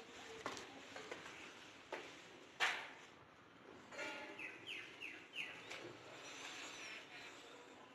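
Footsteps knocking on a bare cement floor, a few steps in the first three seconds with the loudest about two and a half seconds in. Then a bird calls, a quick run of four falling chirps about four to six seconds in.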